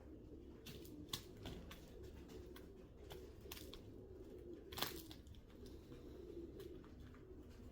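Faint scattered clicks and taps, irregularly spaced, with one louder tap about five seconds in.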